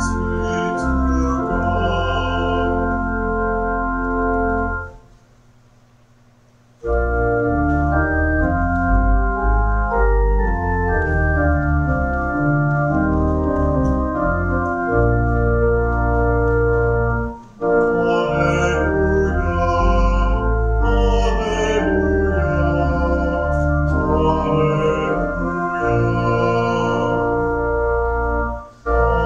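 Church organ playing sustained hymn chords, breaking off about five seconds in for a near-silent pause of a couple of seconds, then playing on.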